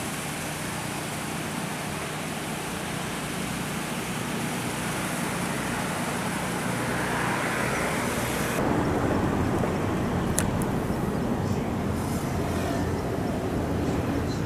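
Steady rush of river water spilling over a low concrete weir. About two-thirds through the hiss loses its high edge, leaving a lower rush, and there is one sharp click.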